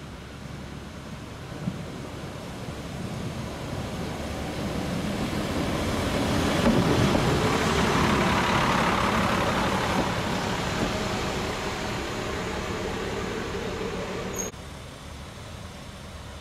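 HSB narrow-gauge diesel railcar approaching and passing close by, its engine and wheels on the rails growing louder to a peak about halfway through, then easing off. Near the end the sound drops suddenly to a quieter, steady engine sound.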